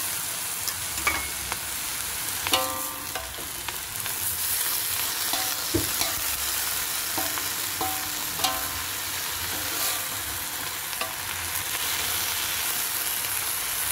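Spinach stir-frying in a metal wok with a steady sizzle, while a metal spatula scrapes and knocks against the wok. Several of the knocks ring briefly.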